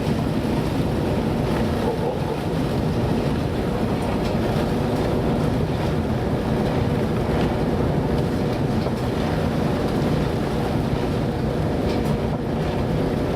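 Continuous low rumble of a small boat in heavy seas, steady with no distinct strokes.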